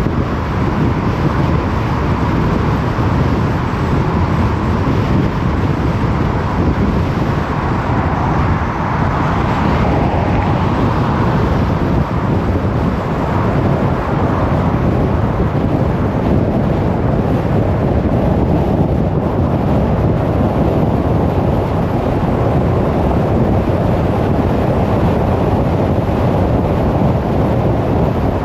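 Car driving steadily along a road: constant tyre and wind noise.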